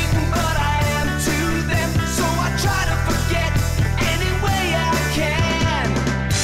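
Rock music with a male singing voice, bass and drums.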